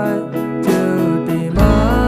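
Background music: a song with a sung melody over acoustic guitar, with a deep bass entering about one and a half seconds in.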